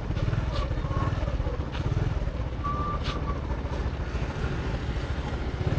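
Motorbike engine running steadily while riding. Two short high beeps come through, about a second in and near the middle.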